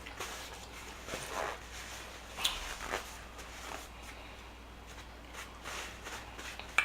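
Close-miked eating sounds: chewing and soft mouth noises, with a few short sharp clicks, the sharpest about two and a half seconds in and again near the end.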